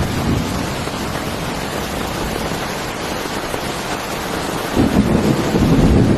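Heavy rain falling steadily, with a low rumble of thunder swelling up about five seconds in.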